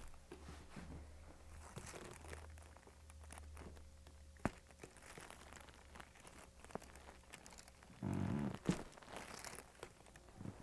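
Soft rustling and crinkling with scattered small clicks during a chiropractic adjustment, then one sharp crack about four and a half seconds in, the pop of a spinal joint being adjusted. Near the end comes a brief sound from a person's voice, like a grunt, and a few more small clicks.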